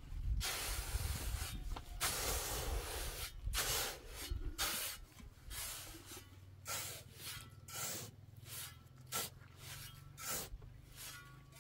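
Repeated scraping swishes: two long strokes at first, then shorter ones coming one or two a second.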